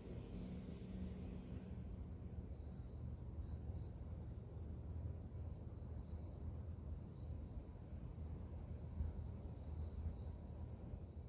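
Insects chirping in short high trills, roughly one a second, over a faint low rumble.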